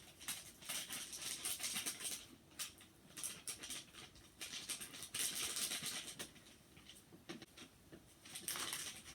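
Bursts of crisp rustling and light pattering as hot pot ingredients such as dry spices are handled, four times, with pauses between.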